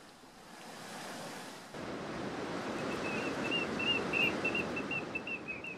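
Rough surf breaking on a rocky shore: a steady wash of wave noise that gets louder about two seconds in. From about three seconds in, a rapid run of short high piping notes, several a second, sounds over it.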